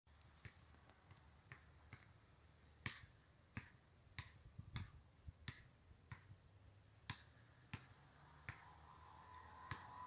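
A quiet series of sharp, irregularly spaced clicks, about one or two a second. A faint steady hum comes in near the end.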